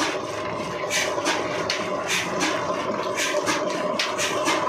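35 HP Ruston-pattern diesel engine running, heard as sharp beats repeating unevenly, about two to three a second, over a steady mechanical hum.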